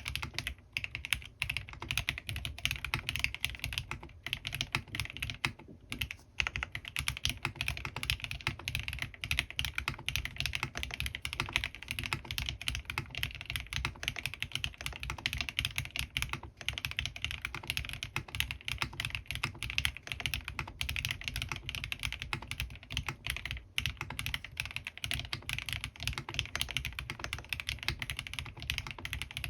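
Steady typing on a Bahm Studio Droplet mechanical keyboard with lubed Gateron CJ linear switches and PBT keycaps: a dense run of keystrokes, with short pauses about six seconds in and again about five seconds before the end.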